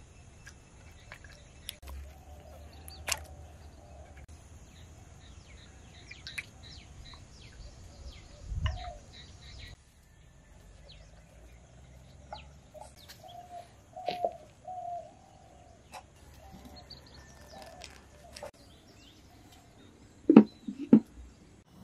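Birds chirping and calling on and off in the background. A steady high hiss runs through the first half and stops about halfway. Near the end come two sharp knocks, the loudest sounds here, as clay pots and lids are handled.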